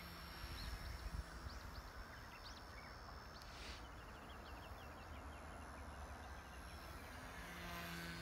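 Faint hum of a small XK K110 electric RC helicopter flying circuits at a distance, growing louder near the end as it comes closer overhead. A few short high chirps sound in the middle.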